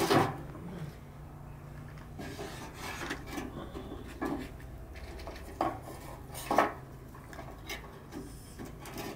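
Split wooden kindling sticks knocking and scraping against each other and against a small sheet-metal stove as they are stacked into it: scattered sharp clacks about a second apart, the loudest about two-thirds of the way through.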